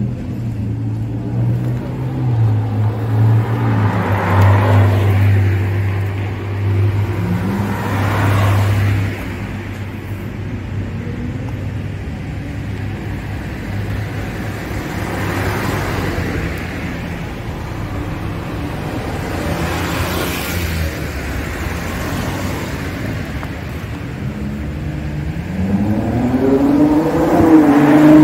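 Cars passing on a road over a low, steady engine rumble that fades after about nine seconds. Near the end a Ferrari 812 GTS's V12 accelerates past close by, its pitch rising as it gets loud.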